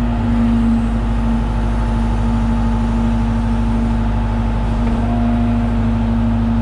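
John Deere 190E excavator's diesel engine running steadily under load during digging, a constant loud hum.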